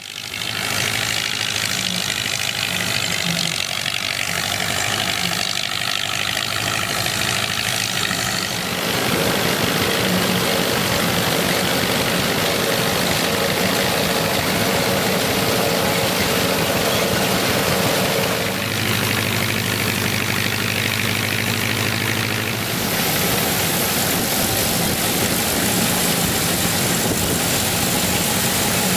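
An antique pull-type combine and its tractor running steadily in the field: the 1931 Gleaner combine's Ford Model A engine driving the threshing works, and the old Rumley tractor's engine towing it. The sound shifts abruptly three times with cuts between shots, and a steady hum is heard for a stretch in the middle.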